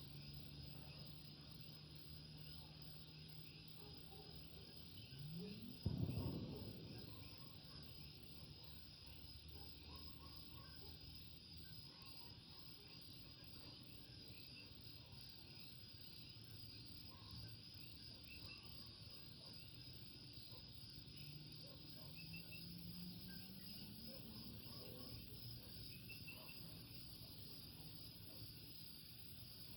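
Faint chorus of coquí frogs, with a steady high trill and scattered short chirps. A low hum runs through the first part, and about six seconds in a brief louder low sound rises in pitch and fades.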